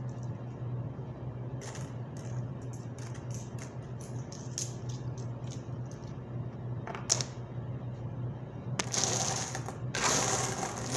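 Loose coins clicking and clinking against each other as they are picked up and counted by hand. There is a sharper click about seven seconds in, then a longer sliding, rustling noise near the end as the coins are swept across the table, over a steady low hum.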